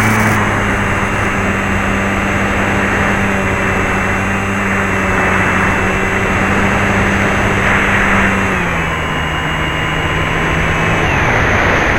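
Motor and propeller of a radio-controlled model airplane in flight: a steady hum under a rush of wind noise. The pitch steps down about three-quarters of the way through and drops again just before the end.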